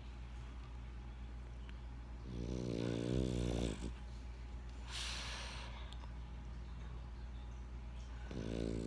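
French bulldog snoring in its sleep: a pitched snore lasting about a second and a half, a breathy hiss a little later, then a second snore starting near the end.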